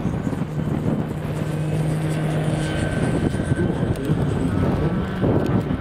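Large electric-powered aerobatic RC plane (Slick 580 with a Kontronik KSG electric motor) taking off and climbing away. Its propeller runs at power with a steady hum, over wind rumbling on the microphone.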